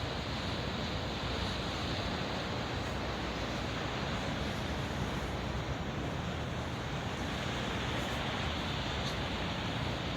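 Sea waves and wind, a steady rushing noise with some wind buffeting on the microphone.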